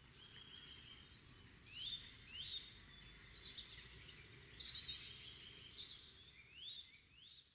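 Several songbirds singing and chirping, with many short quick rising notes, over faint low background noise. The sound fades out at the end.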